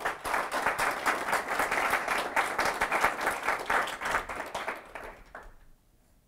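Audience applauding, a dense spatter of clapping that starts at once and dies away after about five and a half seconds.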